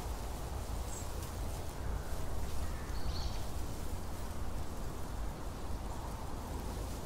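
Open-air outdoor ambience: a steady low rumble with a light hiss, and a couple of faint, brief high chirps, about a second in and again about three seconds in.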